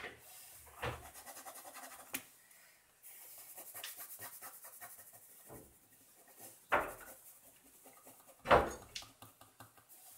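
Ballpoint pen scratching on paper in quick repeated hatching strokes, with a few louder brief bumps in between.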